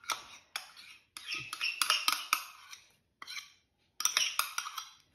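Kitchen utensil clinking and scraping against a container while cream is added to a Thermomix's stainless steel bowl, in several short bursts of scrapes and sharp clicks.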